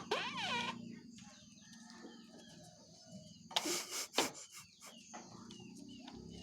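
Chickens clucking, with many short chirping calls throughout and two louder harsh calls about three and a half to four seconds in.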